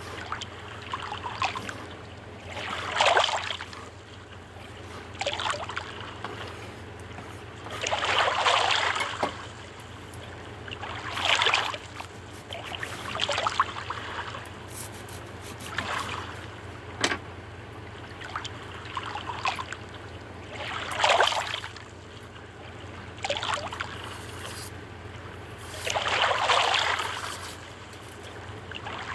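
Water lapping and slapping against a small sailboat's hull in irregular swells every two to three seconds, over a steady low hum, with a few faint clicks.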